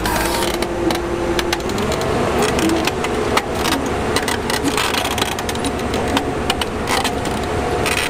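Heavy machine's engine running and speeding up about two seconds in, again near the end, with frequent clanks and knocks of working machinery.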